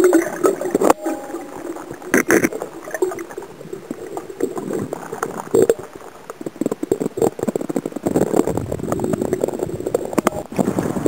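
Muffled underwater camera audio: water gurgling and sloshing against the housing, with many knocks and clicks from handling, busier near the end.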